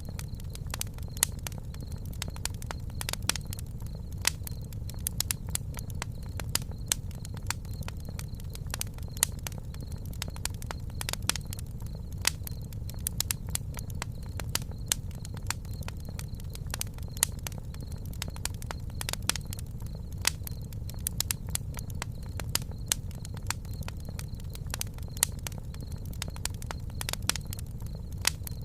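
Campfire burning, crackling with many irregular sharp pops over a steady low rumble.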